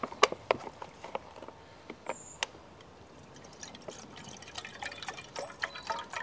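A plastic bottle clicks and crackles as its cap is twisted open. Then water is poured from it into a small metal cup, trickling and splashing during the second half.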